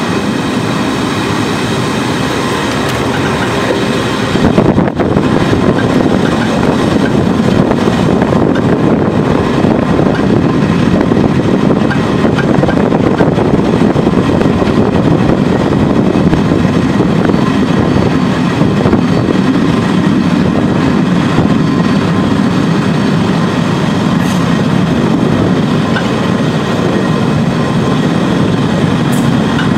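Train hauled by an 071 class diesel-electric locomotive running along the line: a steady loud rumble of wheels on rails, with a brief louder jolt about five seconds in.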